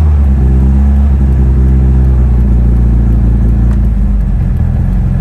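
Mitsubishi Lancer Evolution VIII's turbocharged 2.0-litre 4G63 four-cylinder idling steadily from a cold start. It has performance cams, so it won't idle correctly until it warms up.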